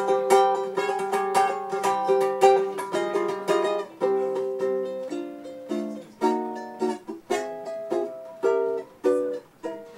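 Solo ukulele strummed, an instrumental passage of chords: quick, busy strumming for the first half, then slower single chord strokes that ring and die away between strikes.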